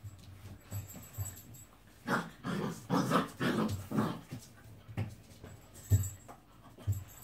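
Gordon setter puppies playing with their dam: a run of short, rapid throaty growls about two seconds in, lasting about two seconds. A few soft low thumps come before and after.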